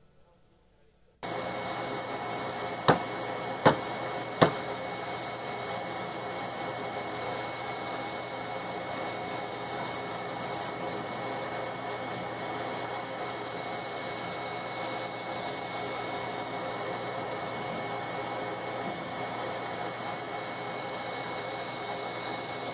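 Laser engraver running as it burns a design into wood: a steady rushing machine noise with a few constant tones through it, starting about a second in, with three sharp clicks soon after.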